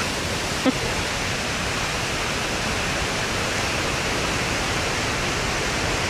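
Steady rushing of a churning river and nearby waterfall, an even, unbroken wash of water noise.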